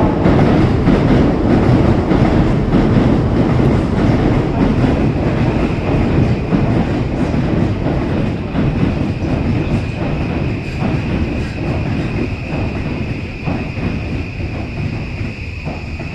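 Train running on rails, wheels clattering over a heavy rumble that slowly fades, with a steady high whine growing clearer in the second half.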